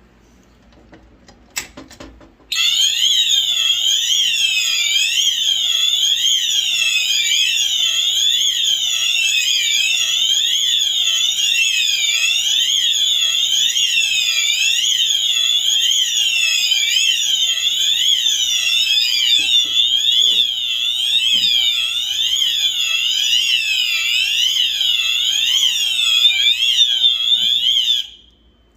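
Fire alarm notification appliances on a demo board sounding a loud, repeating up-and-down sweeping tone, with overlapping sweeps that cross one another. The alarm comes on a couple of seconds in after a few faint clicks, then cuts off suddenly near the end.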